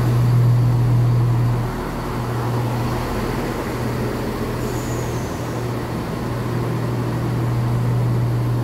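A Class 168 diesel multiple unit running slowly into the platform, its diesel engines giving a steady low drone that is loudest for the first second or two. A brief high squeal comes about five seconds in.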